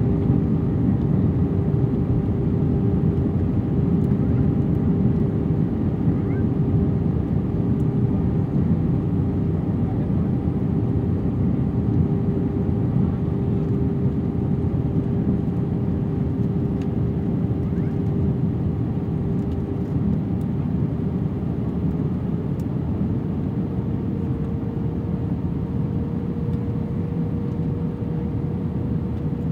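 Airbus A319 cabin noise on approach, heard inside the cabin over the wing: a steady low rush of engines and airflow. A steady hum within it steps up in pitch about two-thirds of the way through.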